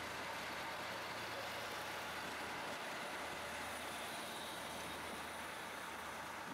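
PESA SA106 diesel railcar pulling away past the platform, its diesel engine running steadily under power with a low hum beneath the rumble of wheels on rails.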